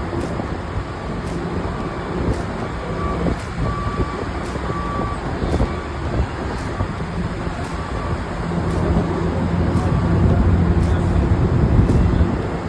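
A heavy vehicle's diesel engine running, with a reversing alarm beeping about one and a half times a second for the first half; the engine grows louder in the second half.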